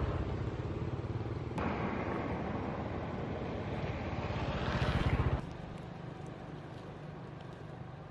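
A motor vehicle engine running, a low pulsing rumble that grows louder up to about five seconds in and then drops away abruptly to a quieter steady background hum.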